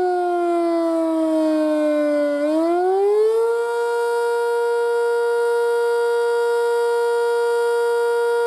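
Sentry 5V outdoor warning siren sounding a wailing tone. Its pitch slides down for about two seconds, swings back up, holds steady for about five seconds, then begins to fall again at the end. This rising and falling wail is the Attack signal of the monthly test.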